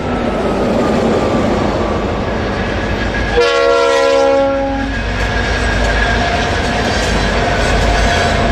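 Diesel locomotives of a Santa Fe freight train approaching with a steady low engine and rail rumble that grows louder. About three seconds in, a multi-note chord horn sounds one blast of about a second and a half.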